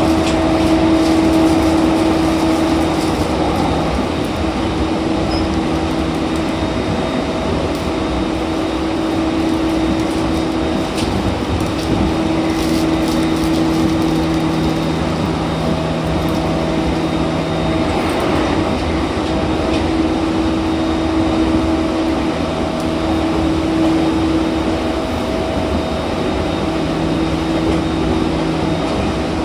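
E231-1000 series electric train running at steady speed, heard from inside the car: continuous rail and wheel rumble with steady-pitched hums from the drive equipment that fade in and out every few seconds.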